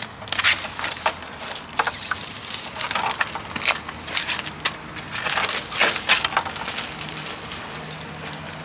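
Clear protective plastic film being peeled off a gloss black plastic front splitter: an uneven run of crackling, crinkling rips and rustles.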